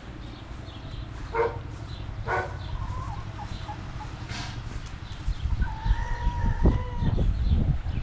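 Chickens clucking with two short calls, then a rooster crowing once, a call of about a second and a half, over a low rumble.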